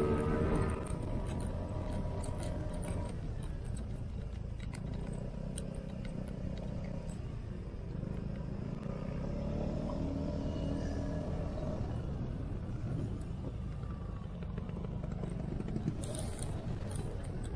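Motor scooter ride heard from the scooter itself: a steady low rumble of the Vespa's engine mixed with wind on the mounted camera's microphone.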